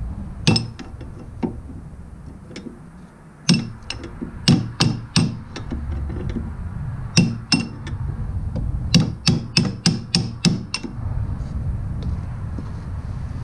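A hammer striking a steel punch against a seized shock-mount bolt, trying to drive out a bolt whose sleeve is rusted to it. About a dozen ringing metal blows come in irregular bursts, with a quick run of strikes near the end.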